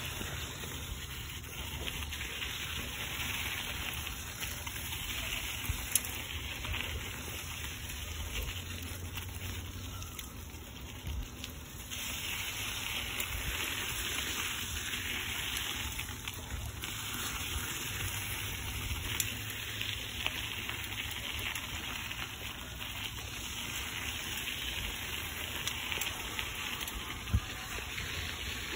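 Wind rushing over the microphone and a mountain bike's tyres rolling on a damp dirt trail: a steady noisy rush with a low rumble, broken by a few sharp clicks.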